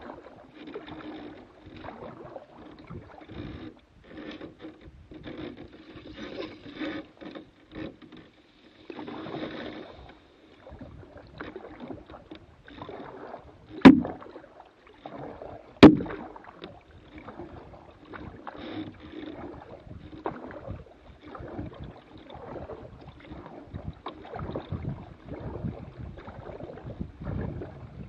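Small boat gliding along a river, with irregular splashing and swishing of water around the hull. Two sharp knocks come about two seconds apart near the middle and are the loudest sounds.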